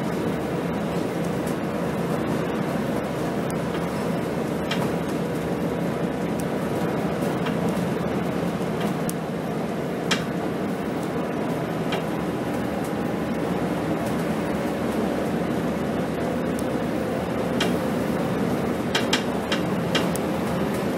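Steady drone of a 2007 Scania K270 diesel city bus cruising on a motorway, heard inside the bus: engine hum under road and tyre noise. A few sharp clicks from the cabin come through it, several of them bunched near the end.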